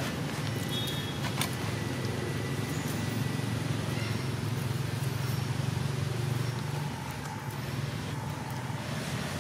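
Steady low hum of a running motor, like an idling engine, under general outdoor background noise, with a few faint clicks.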